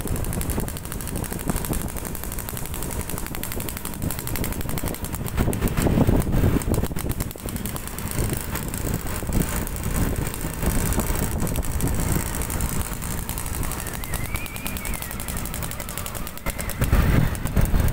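Suzuki Satria 120's two-stroke single-cylinder engine with a hollowed-out roadrace exhaust, ridden along, giving a loud, rapid rattling exhaust note. The revs surge about six seconds in and again near the end.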